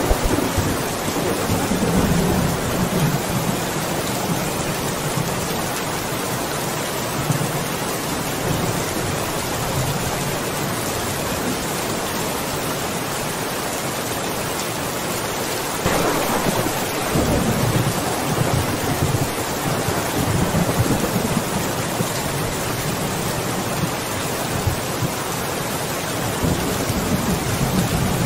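Steady heavy rain falling on a wet surface, with thunder rumbling low beneath it. Just past halfway a louder roll of thunder breaks in and rumbles on for several seconds.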